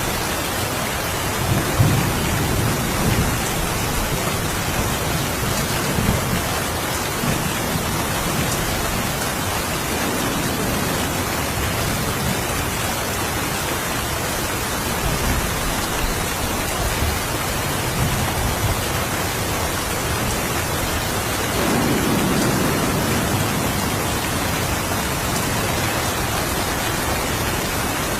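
Steady rain hissing, with low thunder rumbling in soft swells, strongest about two seconds in and again about twenty-two seconds in.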